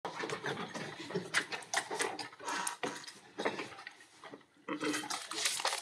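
Paper rustling and small knocks and clatter at the council desks, picked up by the desk microphones: a busy run of short, sharp clicks and scrapes, pausing briefly before resuming near the end.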